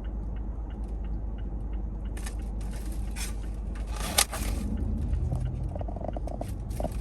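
Chewing and small rustling, clicking handling sounds of sushi being eaten, over the steady low hum of a car cabin; one sharp click about four seconds in.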